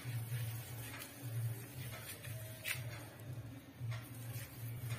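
Faint rubbing and light scraping of fingers spreading ghee over a stainless steel plate, heard over a low steady hum.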